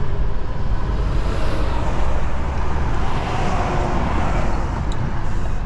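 Kenworth truck's diesel engine pulling under load with a steady low rumble, heard inside the cab as the truck drives out of soft sand on the dirt shoulder.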